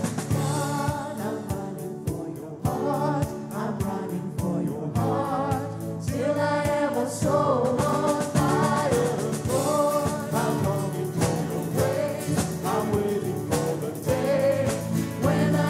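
Live worship band performing a contemporary Christian rock song: vocalists singing over strummed acoustic guitars and a drum kit.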